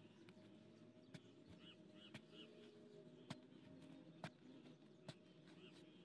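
Faint sharp ticks about once a second as a metal spade chops into soil, with faint bird chirps behind.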